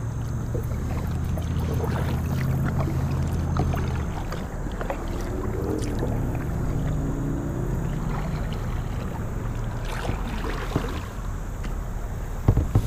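Kayak paddling: the double-bladed paddle dipping and pulling through calm water, with splashes and light knocks at each stroke over a steady low hum. A single stronger thump near the end.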